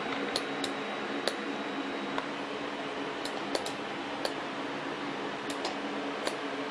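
About a dozen sharp, irregular clicks from a computer mouse being clicked and handled, over a steady low hum.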